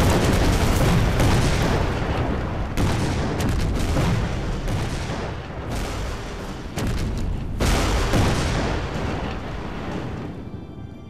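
A string of explosions, one blast after another about every second or two, each followed by a long rumble. The blasts die away near the end as music comes in.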